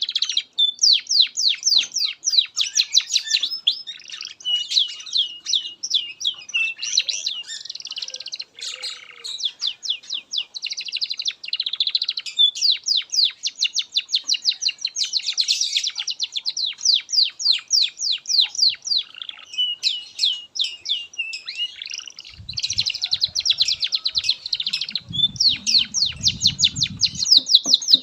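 Domestic canary singing a long, continuous song of fast trills and rapid runs of repeated chirps. A low rumbling noise sits under the song for a few seconds near the end.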